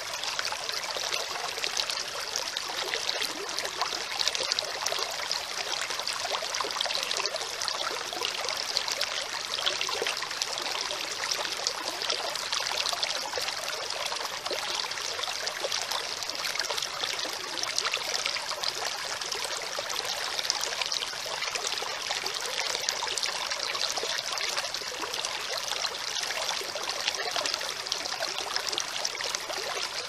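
Shallow stream running over pebbles and rocks: a steady, even trickling and splashing of water.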